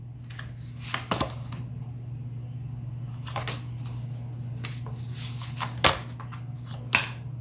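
Oracle cards being drawn from a deck in the hands and laid onto a table: four short card snaps and slides, the sharpest about six seconds in, over a steady low hum.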